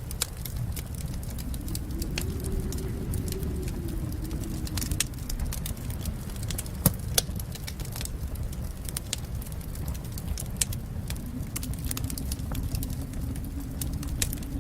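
Wood fire in a fireplace crackling, with irregular sharp pops over a steady low rumble of the flames; the loudest pop comes about seven seconds in.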